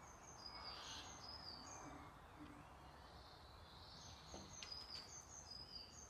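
Faint, high-pitched bird chirps in two short runs of quick stepped notes, about a second and a half each, over quiet room tone.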